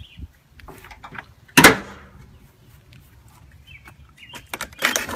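A single sharp knock about a second and a half in, then a burst of clattering and rattling near the end, from handling at a fence gate. A few faint bird chirps in between.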